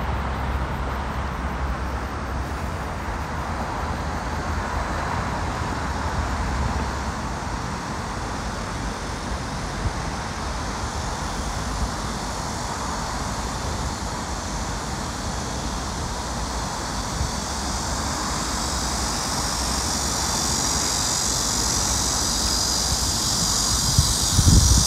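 Steady outdoor ambience of distant road traffic, with a high, steady insect chorus growing louder over the last several seconds.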